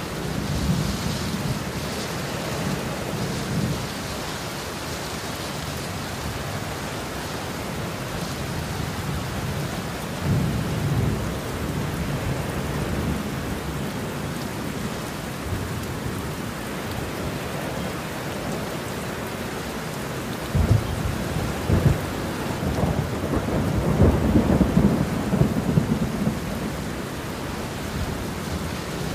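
Heavy rain falling steadily, with thunder rolling underneath: low rumbles at the start and again around ten seconds in, and a louder spell of sharp cracks and rumbling from about twenty seconds in, the loudest part.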